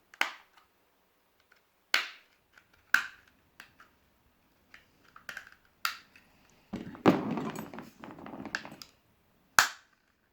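A plastic pry tool works around the seam of a Garmin Nuvi 2599LMT sat nav, and the case clips snap loose with about five sharp plastic clicks spread through. Near the end come about two seconds of plastic scraping and rattling as the screen frame is worked apart.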